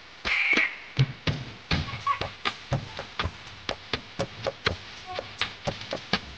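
A rapid series of sharp clicks or taps, about three a second and slightly irregular, following a brief high-pitched squeal right at the start.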